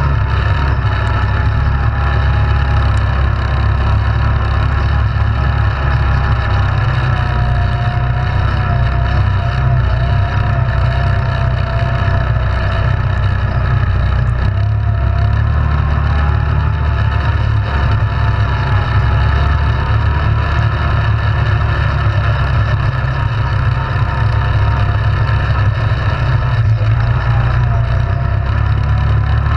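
ATV engine running steadily under way, its pitch drifting slightly up and down with the throttle, over a heavy low rumble.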